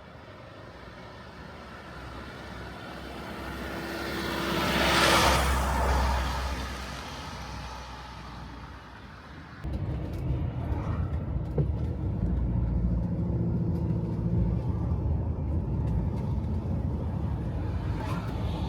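A motor vehicle drives past, swelling to its loudest about five seconds in and then fading. About ten seconds in, the sound switches abruptly to a steady engine rumble of a vehicle under way.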